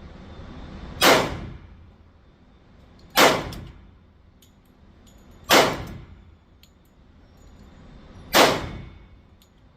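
Four single pistol shots from a Glock 21 .45 ACP, spaced two to three seconds apart, each with a short ringing tail. Fainter sharp ticks sound in between.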